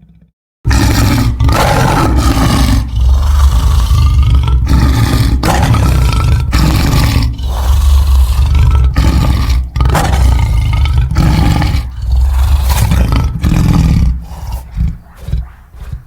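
Loud, deep dinosaur roars made from lion roars, a run of long roars starting about half a second in. Near the end they break into shorter, choppy roars.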